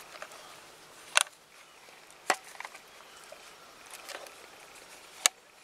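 Gloved hands handling a plastic trail camera strapped to a tree: three sharp clicks spread over the few seconds, with fainter ticks and rustling among the branches between them, as the camera's case is worked open.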